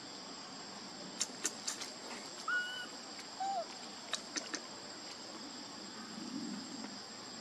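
Steady high drone of forest insects with a thin constant whine above it. Sharp clicks come in a cluster a little over a second in and again about four seconds in, and three short chirps sound in between.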